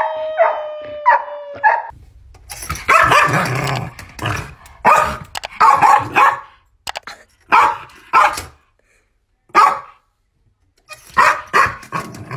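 A golden retriever howling, one held call that ends about two seconds in. Then a small shaggy dog barks over and over in short, separate runs.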